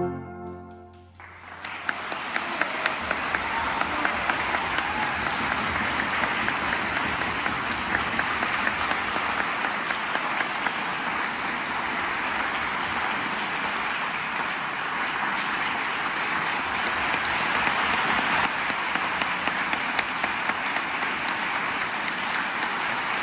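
A brass band's final chord dies away in the hall's reverberation. About a second and a half in, the audience breaks into applause that keeps going at an even level.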